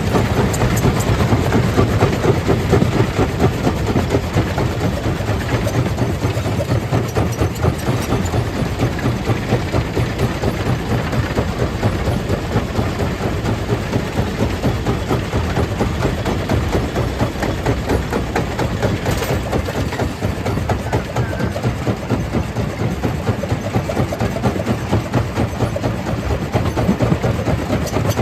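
Stone crusher machine running under load: a steady heavy mechanical drone with a fast, dense rattle that carries on without a break.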